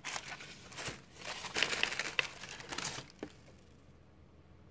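Paper rustling and crinkling as a thick watercolour paper pad is handled and its cover flipped open, with small taps and clicks; the rustling stops about three seconds in.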